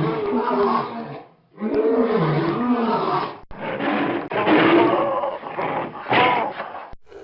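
Lion roaring in three long bouts, each a couple of seconds or more, with abrupt breaks between them.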